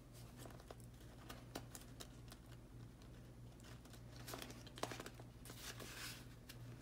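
Faint rustling and crinkling of paper banknotes being handled and slipped into a cash envelope, with soft small clicks and a few louder rustles about two-thirds of the way through. A steady low hum runs underneath.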